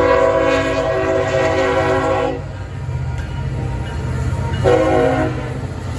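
Amtrak Auto Train locomotive horn: one long blast of a few seconds, then a short blast near the end, over the steady low rumble of the passing train.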